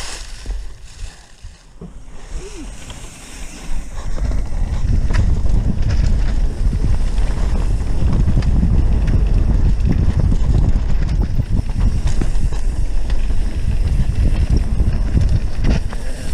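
Wind buffeting the microphone and a mountain bike rattling and rumbling over a dirt trail at speed, much louder from about four seconds in, with scattered clicks from the bike and trail.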